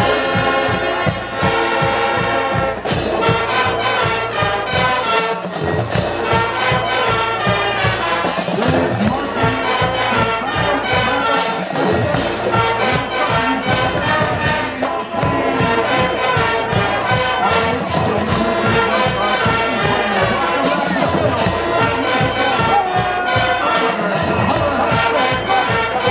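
High school marching band playing a loud brass-led piece over a steady drum beat.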